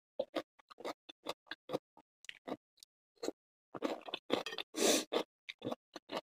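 Close-miked chewing of a sandwich pickle: an irregular run of short chewing clicks, with a louder noisy stretch about five seconds in.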